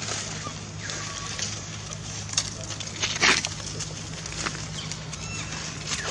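Infant macaque crying in short, falling, thin calls, once near the start and again near the end, with a louder, harsher burst about three seconds in.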